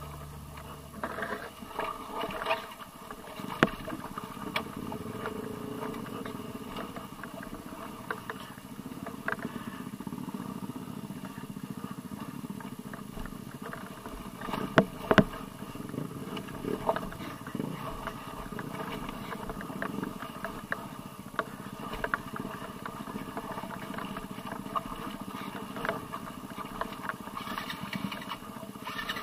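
Dirt bike engine running at a low, steady speed on a rough muddy trail, with occasional sharp knocks and clatter.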